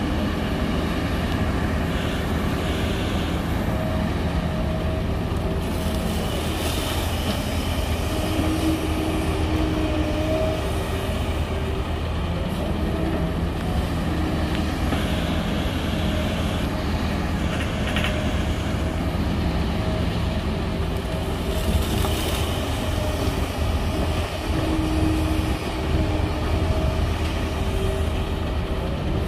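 Heavy diesel engines running steadily: a Kobelco SK380XD hydraulic excavator working its boom and bucket beside an idling dump truck. A faint whine comes and goes, and short rushes of sand pour into the steel truck bed every few seconds.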